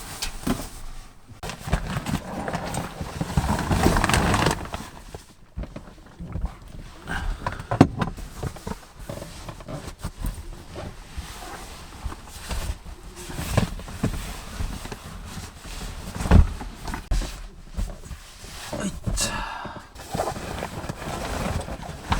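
Rustling and irregular knocks and thumps of camping gear being handled and set down while a sleeping area is made up in a vehicle, with two sharper knocks about eight seconds in and past sixteen seconds.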